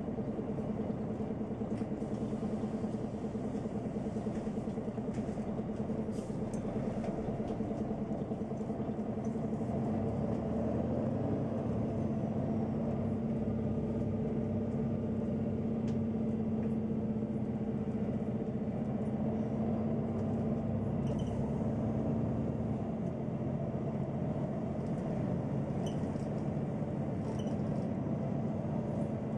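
Neoplan N 4416 Centroliner city bus driving, heard from inside the cabin: a steady diesel engine drone that grows a little louder about ten seconds in, with a few faint clicks over it.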